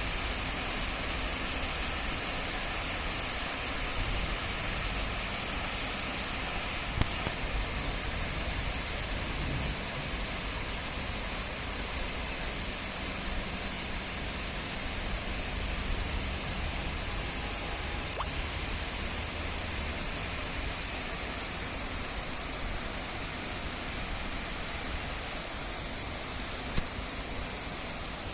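Steady rain falling, an even hiss with no break, with a few sharp isolated clicks, the loudest about eighteen seconds in.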